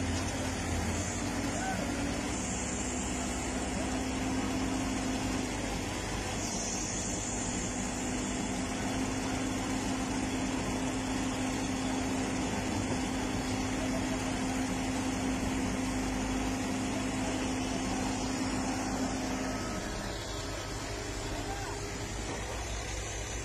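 Diesel engines of hydraulic excavators running steadily while they lift a marble block onto a truck, a constant low hum that drops away about twenty seconds in.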